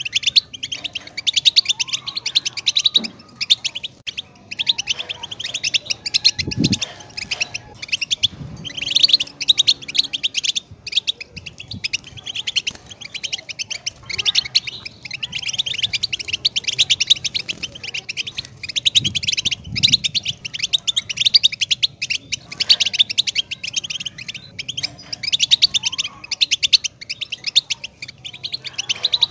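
European goldfinch singing: fast, continuous twittering of high chirps in long phrases, broken by a few brief pauses.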